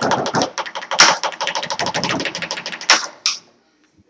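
Markers drummed fast on a wooden tabletop: a rapid flurry of sharp taps, many per second. It ends with a louder hit about three seconds in and then stops.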